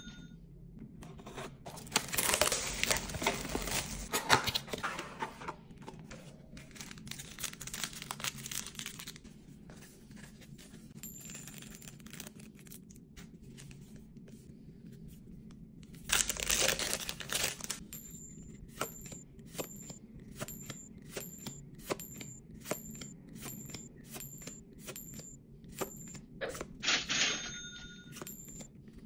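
Foil Yu-Gi-Oh! trading card booster packs being torn open and crinkled, in two loud crackling spells a few seconds in and about halfway through. Then a steady run of short, even clicks as the cards are flipped one after another.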